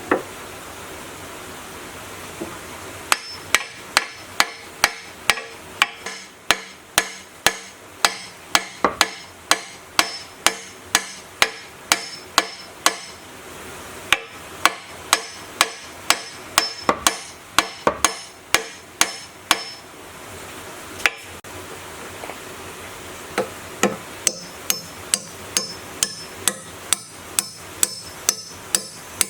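Hammer blows in a steady rhythm of about two to three a second, each with a short ring. The blows start a few seconds in, pause briefly about two-thirds of the way through, then carry on.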